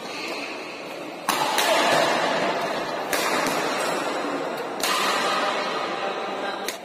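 A badminton doubles rally in a large sports hall: three sudden loud bursts, about two seconds apart, each fading away over a second or so, and a short sharp crack near the end as the point ends.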